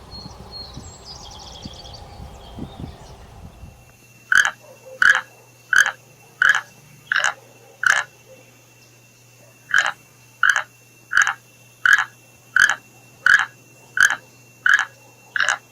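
An animal calling in a regular series of short, loud calls, one about every 0.7 seconds: six in a row, a pause of about two seconds, then nine more. Before the calls start, a faint outdoor background with a brief high bird-like trill.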